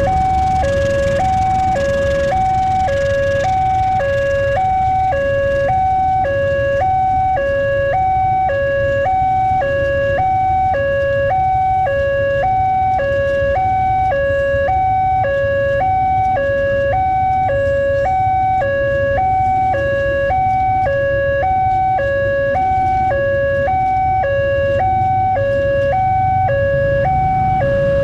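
Railway level-crossing warning siren of the recorded 'MP3' type, sounding a steady two-tone hi-lo wail, about one high-low cycle a second, without pause, over a low rumble.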